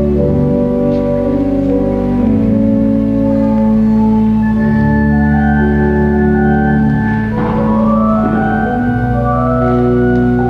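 Organ playing slow, held chords that change every second or two, as wedding processional music.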